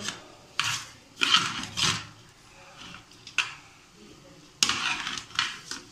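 Metal spoon scraping and stirring dry couscous grains against the sides of an aluminium pot, in a series of short, irregular strokes.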